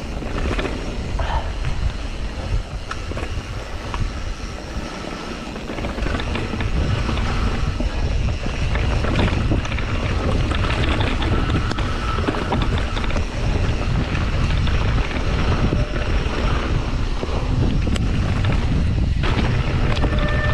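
Wind buffeting the microphone of a camera on a moving mountain bike, a heavy low rumble that grows louder about six seconds in as speed picks up, with tyre noise and small knocks from the bike on the dirt trail.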